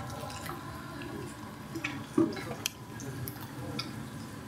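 Long wooden paddle stirring thick gosht kocha in a large aluminium cooking pot: soft squelching of the porridge, with a few sharp knocks of the paddle against the pot about two to three seconds in.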